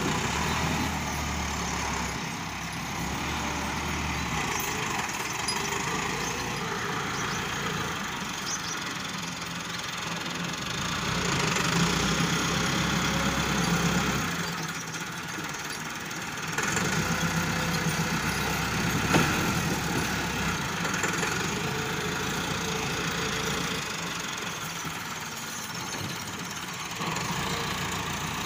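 Diesel farm tractor with a front-end loader, its engine running and working the loader, rising and falling in level as it digs and lifts. One sharp knock comes about two-thirds of the way through.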